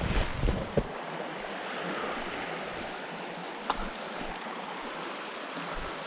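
Creek water running steadily, with a few short knocks in the first second and a single sharp click near the middle.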